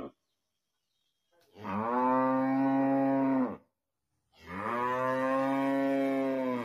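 A cow mooing: two long, steady moos of about two seconds each, with a short silence between them.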